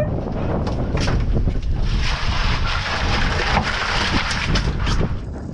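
Wind buffeting the microphone on an open boat at sea: a steady rushing noise that grows louder and hissier through the middle, with a few light clicks.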